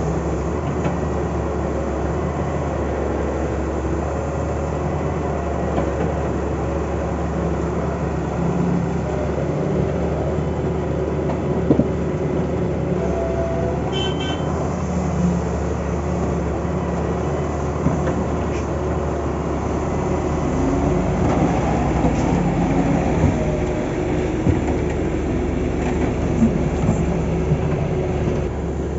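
Heavy diesel construction machinery running steadily, growing a little louder and busier in the last third. A short high beep sounds about halfway through.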